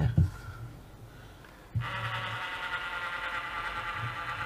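DeWalt DCE580 cordless caulking gun's electric motor starting about two seconds in and then running with a steady whine, driving the plunger to push sealant out of the cartridge. A light knock comes right at the start.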